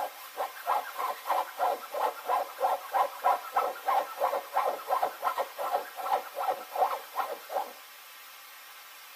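Orange tabby cat calling out of sight in a fast, even string of short calls, about three a second, that stops about eight seconds in.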